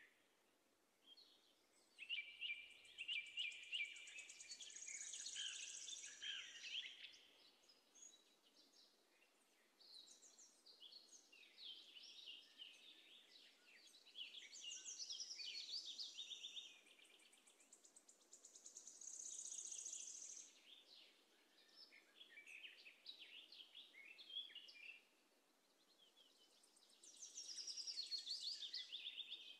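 A small songbird singing faintly in repeated phrases of rapid high chirps and trills, each a few seconds long with short pauses between them.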